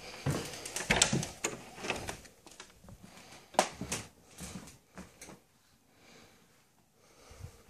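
Footsteps and knocks on a wooden floor, with a wooden panel door's knob and latch clicking as the door is opened in the first couple of seconds. After that come a few sparser taps and footfalls, quieter toward the end.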